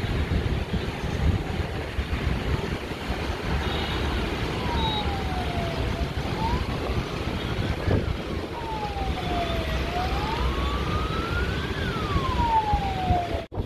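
A wailing siren starts about four and a half seconds in, sweeping down and up in pitch twice and falling away again near the end, over a steady low rumble.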